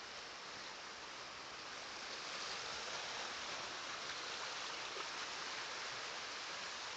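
Steady rushing noise of running water, a little louder from about two seconds in.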